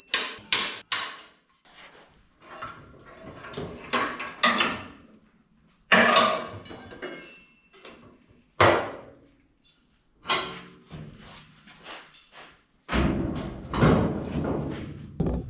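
Spring-loaded automatic center punch snapping against the steel compressor mount to mark bolt holes: a series of sharp metallic snaps, three in quick succession at the start, then single strikes every second or two. A longer clatter of metal parts comes near the end.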